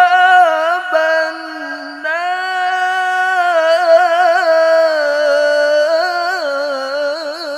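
A man's solo voice reciting the Quran in melodic tilawah style into a handheld microphone, drawing out long held notes that break into quick wavering melismatic ornaments, with a short breath about two seconds in.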